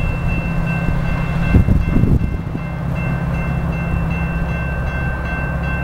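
A Metra diesel commuter train approaching, a steady low rumble, with a repeating high-pitched ringing over it. A few low thumps come about a second and a half in.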